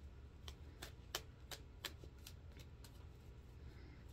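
Tarot cards being shuffled by hand: soft, quick card slaps, about three a second.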